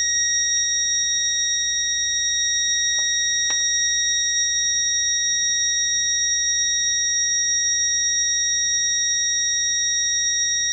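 Loudspeaker of a home-built 555-timer fire alarm circuit sounding one steady, unwavering high-pitched tone: the alarm triggered by its heated thermistor sensor.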